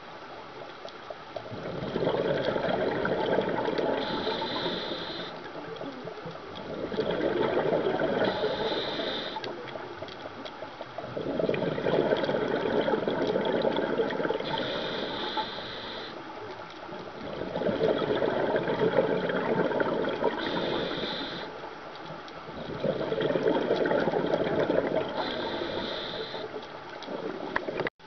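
Scuba diver breathing through a regulator, heard underwater: five slow, even breaths, each a long burble of exhaled bubbles with a short higher hiss near its end.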